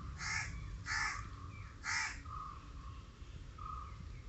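Three harsh, cawing bird calls about a second apart, with faint short high notes repeating between and after them.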